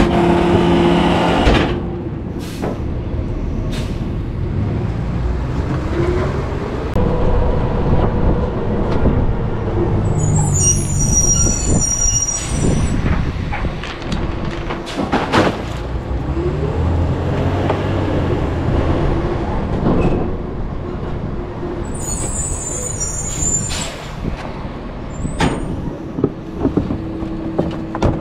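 Rear-loader garbage truck's engine running as the truck drives, rising and falling in revs twice, with two brief high squeals from the air brakes as it slows, about a third of the way in and again near the end.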